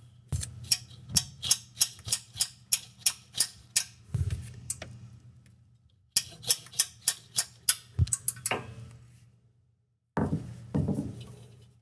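Light, rapid hammer taps on a wrench fitted to a stubborn exhaust manifold bolt, to jar it loose. The taps come about four a second in two runs, with a few softer knocks near the end.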